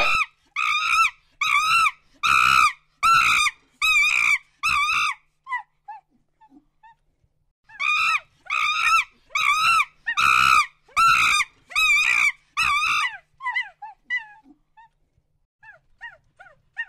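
Monkey giving a string of short, high-pitched arched calls, about one and a half a second, in two bouts of eight or nine calls with a pause of about three seconds between them. Each bout trails off into faint short chirps.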